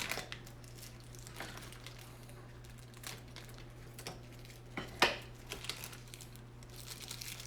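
Small plastic wrapper crinkling and tearing as a pin is unwrapped by hand: scattered crackles, with a sharper snap about five seconds in.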